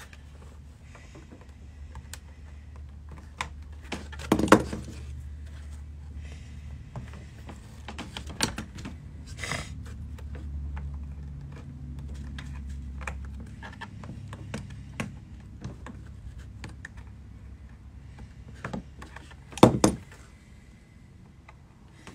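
Scattered clicks, taps and knocks of pliers working plastic retaining clips on a plastic rear package tray panel, with two loud sharp knocks close together near the end. A low steady hum underneath stops just past the middle.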